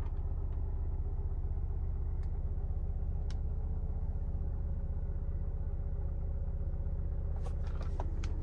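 Tata Safari's 2.0-litre four-cylinder diesel engine idling, heard inside the closed cabin as a steady low hum, with a few faint ticks and a short sharp click at the very end.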